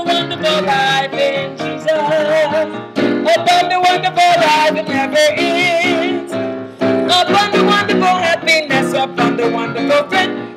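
Electronic keyboard playing an instrumental passage of a gospel song: chords under a melody line with vibrato.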